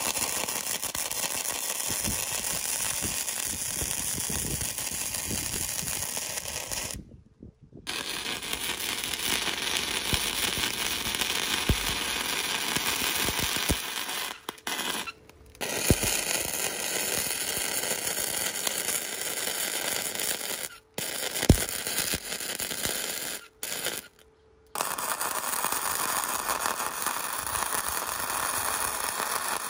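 Dense crackling and scraping from metalworking, with many small clicks, broken into several takes by brief silent gaps.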